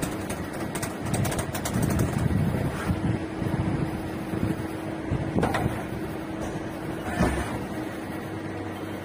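Okuma LT10-M CNC lathe running: a steady mechanical hum with a constant tone, broken by two sharp knocks about five and seven seconds in.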